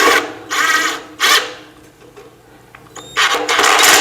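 Cordless power drill/driver running a screw in short bursts: three quick pulses of motor whine, a pause, then a longer run of about a second near the end.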